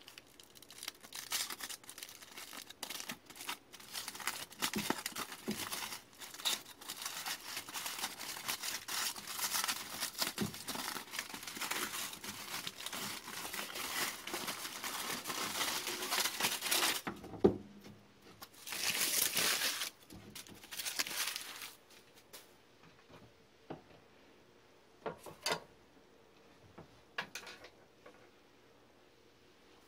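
Aluminium foil being unwrapped, crumpled and folded by hand: dense crinkling for about the first seventeen seconds, one more loud burst a little later, then only a few brief rustles.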